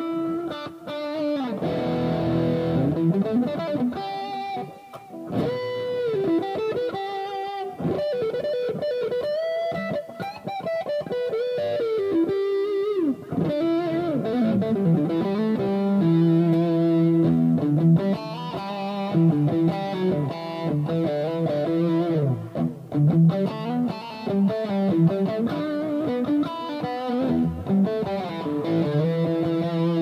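1970s made-in-Japan Joodee JLP-55 Les Paul-copy electric guitar played through an amp. The first half is single-note lead lines with string bends. From about halfway on it is mostly chords.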